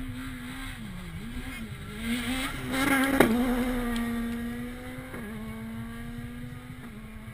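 Rally car engine at high revs, its note dipping about a second in and then climbing and growing louder as it accelerates. A sharp crack comes about three seconds in, after which the engine note holds steady and slowly sags in pitch.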